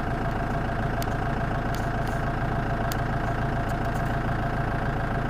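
Car engine idling steadily, heard from inside the cabin, with a few faint ticks.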